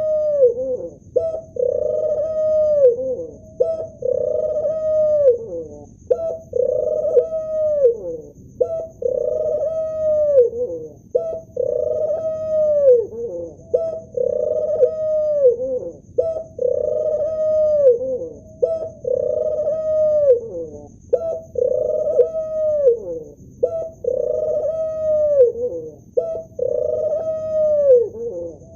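Male ring-necked dove cooing over and over: a low, held coo that falls away at its end, repeated about every two seconds.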